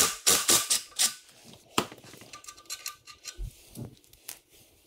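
Ratchet wrench clicking in a quick run of sharp metallic clicks, then a few scattered clicks and clinks, as a bolt is loosened and backed out.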